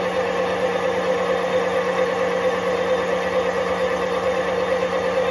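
Metal lathe taking a facing cut across a twin-plate tractor clutch's intermediate plate, running steadily. The large plate resonates and the cut chatters, giving a constant hum with a strong ringing tone.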